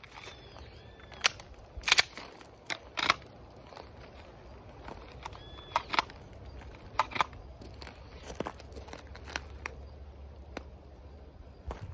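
Footsteps crunching on gravel and scattered sharp clicks and rattles from handling a holstered pistol and belt gear, about a dozen irregular clicks in all.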